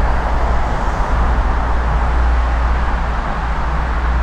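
Steady rumble and hiss of Interstate 94 highway traffic.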